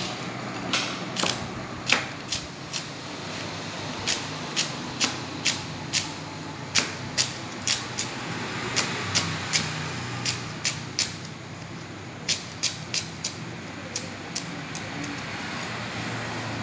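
Kitchen knife chopping a green vegetable on a plastic cutting board: sharp knocks of the blade hitting the board, about two a second. There is a short pause a little after the middle, and the chopping stops a couple of seconds before the end.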